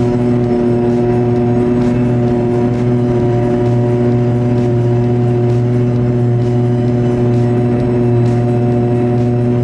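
Self-propelled forage harvester running steadily under load, picking up and chopping a grass windrow, heard from inside the cab: a loud, constant droning hum that holds one pitch throughout.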